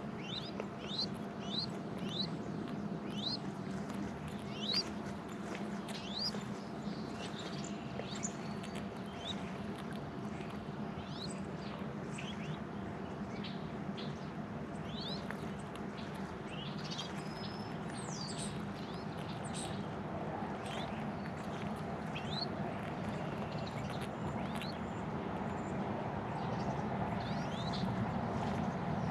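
Small songbirds chirping outdoors, many short quick notes that fall in pitch, scattered throughout, over a steady background hum that grows a little louder near the end.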